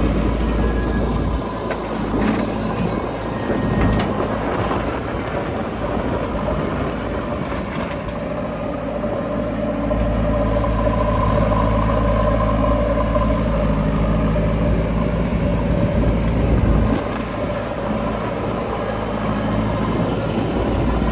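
Heavy diesel engine of a tractor or backhoe loader running steadily. Its deep low note grows stronger about halfway through and eases again a few seconds before the end.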